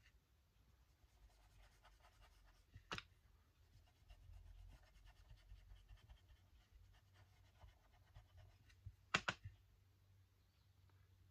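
Faint scratching of a colouring tool rubbed over paper. There is a sharp click about three seconds in and two more in quick succession near the end.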